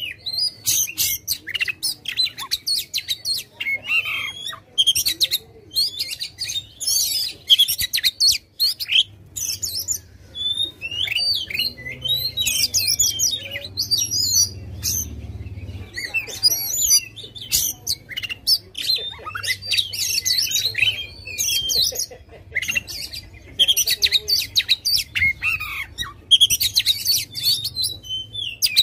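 Oriental magpie-robin (kacer) singing continuously: a rapid, varied stream of whistled and chattering phrases with only short breaks between them.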